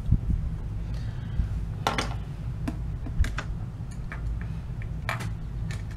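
Irregular light clicks and taps of makeup products and tools being handled, over a steady low hum.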